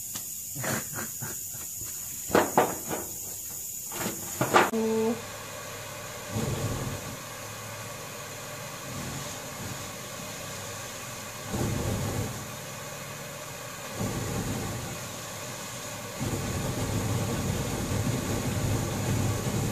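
Several sharp clicks and knocks. Then a steady hiss broken by rumbling surges of flame every few seconds as air-blown dry fuel ignites in a torch flame. Near the end this becomes a continuous rumbling burn.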